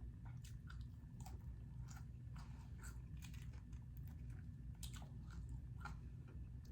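Close-miked chewing of a mouthful of taco salad, with irregular soft wet clicks over a faint steady low hum.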